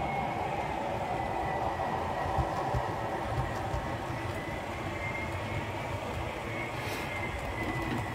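OO gauge model trains running on the layout's track: a steady rumble of wheels on rail, with a thin steady whine and a few light clicks, as a model diesel locomotive and its coaches pass close by.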